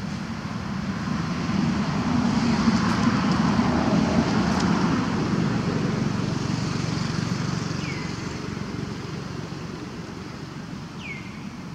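A road vehicle passing, its noise swelling over the first few seconds and then fading away. Two short, high, falling chirps come near the end.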